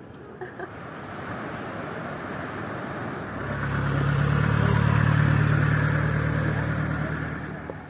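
A motor vehicle approaching and passing close by: tyre and engine noise building over a few seconds, a low engine hum loudest about five seconds in, then fading away near the end.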